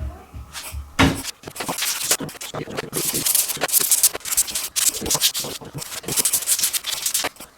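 A hand-squeezed camera air blower puffing air in a quick series of short hisses, blowing dust out of the open laptop. There is a knock about a second in.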